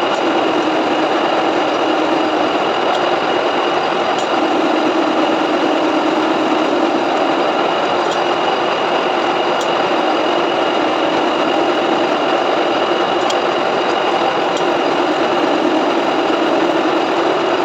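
Metal-turning lathe running steadily while machining a steel shaft, a constant even machine sound with a steady tone.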